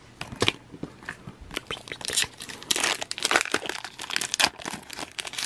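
Foil Pokémon trading-card booster pack wrapper crinkling and crackling in the hands as it is torn open, in irregular bursts that grow denser about two seconds in.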